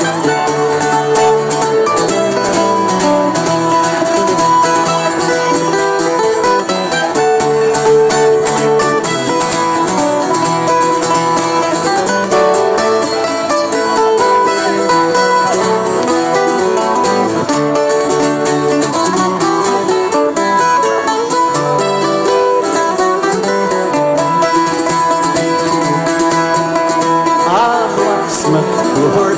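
Irish folk band playing live: picked and strummed strings with a held melody line over them, no singing yet.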